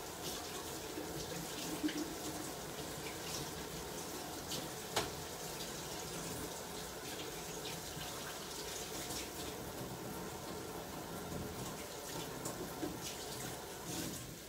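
Kitchen tap running into the sink as cherry tomatoes are rinsed under it, with a couple of light knocks; the water stops near the end.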